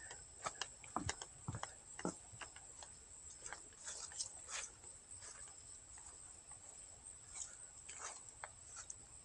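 Scattered faint ticks and taps of raindrops dripping from wet trees after rain, over a steady high drone of insects.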